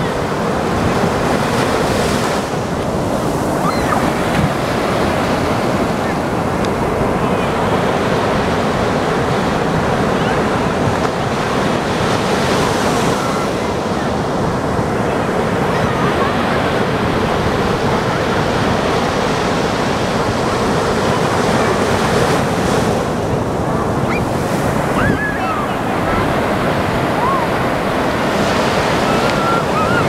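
Heavy ocean surf breaking and foaming up a sandy beach at the water's edge, with wind buffeting the microphone.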